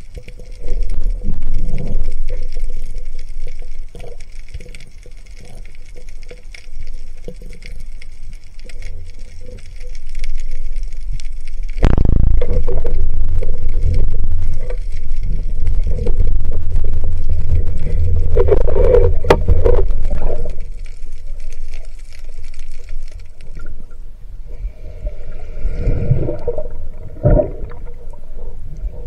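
Underwater noise picked up through an action camera's waterproof housing as a diver swims: a low rumbling water wash with muffled knocks and gurgling. About twelve seconds in it starts suddenly and grows much louder and fuller for several seconds, then settles into quieter gurgling.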